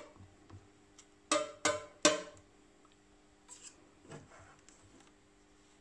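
Spoon knocking and scraping against a metal loaf pan while spreading a thick chocolate layer over biscuits: three sharp ringing clinks in quick succession a little after a second in, then a few fainter taps.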